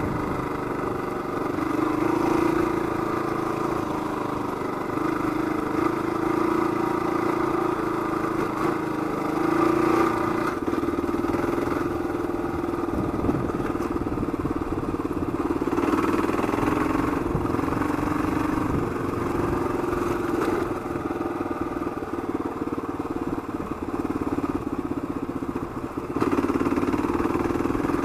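Kawasaki KLR 650's single-cylinder engine through a Supertrapp exhaust, riding along a rough dirt trail, the engine note rising and easing off several times as the throttle changes.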